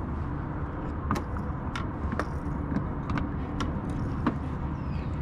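Kayak on the water: a steady low rumble with about seven scattered sharp knocks and clicks of gear and hull.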